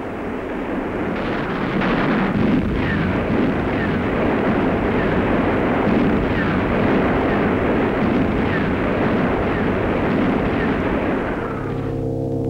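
Massed artillery barrage: a dense, continuous rumble of gunfire and shell bursts, with short falling whistles about once a second. Near the end it gives way to a deep, steady gong-like ringing tone.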